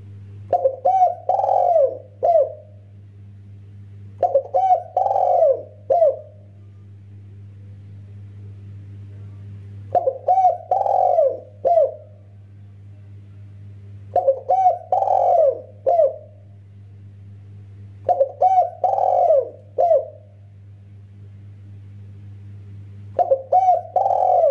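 Spotted dove (tekukur) cooing in repeated phrases, six in all, about every four to six seconds. Each phrase is a quick run of short coos, a longer drawn-out coo, then a short final note, over a steady low hum.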